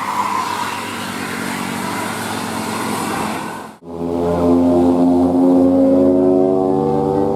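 Bus engine and road noise as a bus goes by, then, after an abrupt cut, a bus engine accelerating: a loud, steady drone that slowly rises in pitch.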